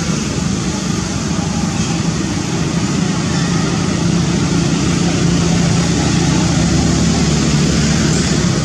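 Steady rumble and hiss of a running engine, its low hum growing a little stronger about halfway through.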